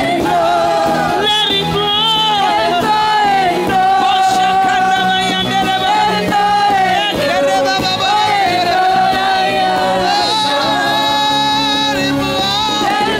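Gospel singing: a lead voice holds long, wavering notes over instrumental accompaniment.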